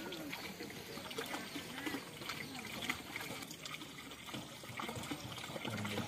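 Water trickling, with many small clicks and light splashes at the water's surface.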